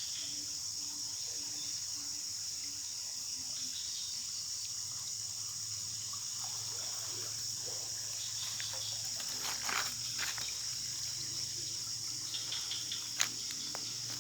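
Steady high-pitched insect chorus in a rain-soaked oil palm plantation, with a few sharp taps and clicks near the middle and one more near the end.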